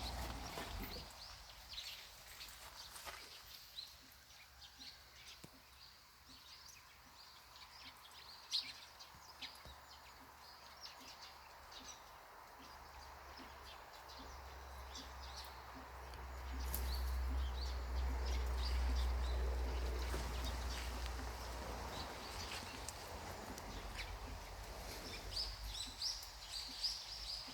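Small birds chirping now and then over outdoor background noise, with a low rumble that swells in the middle and then eases.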